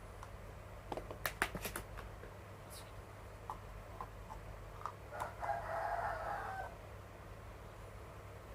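A few sharp clicks and knocks about a second in, then a single rooster crow lasting about a second and a half, about five seconds in.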